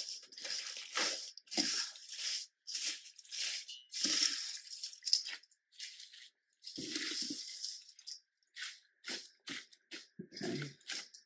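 Popcorn, cornflakes, crushed pretzels and potato chips coated in gooey melted marshmallow being stirred with a spatula in a stainless steel bowl: repeated crunchy rustling strokes, roughly two a second, with a short pause about six seconds in.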